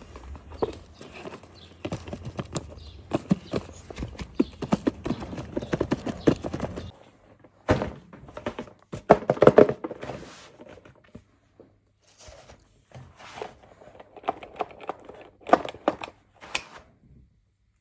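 Small dolls and their packaging being handled. It is a quick run of clicks, taps and knocks, dense for the first several seconds, then in scattered clusters, stopping shortly before the end.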